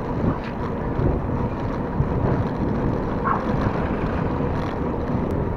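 Wind buffeting the microphone of a camera carried on a moving bicycle: a steady, uneven low noise.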